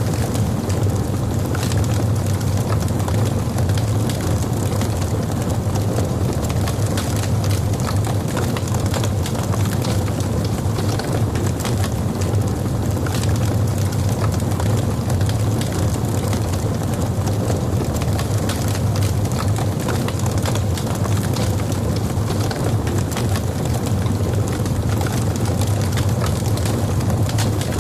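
Logs burning in a fireplace: a steady low rumble of flame with many small crackles and snaps throughout.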